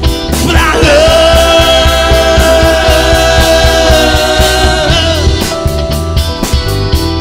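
Live rock band of electric guitar, bass guitar, drums and electric piano playing a steady groove. Over it one high lead note slides up about half a second in and is held for about four seconds, wavering as it ends.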